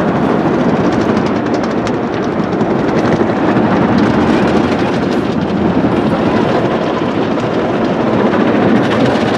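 Automatic car wash working over the car, heard from inside the closed cabin as a steady, loud, even rush.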